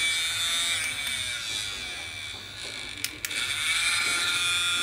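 Small DC motor and fan of a homemade USB mini air blower running with a high-pitched whine. The pitch sags and the sound gets quieter over the first couple of seconds, then two sharp clicks about three seconds in, after which it runs at full level again.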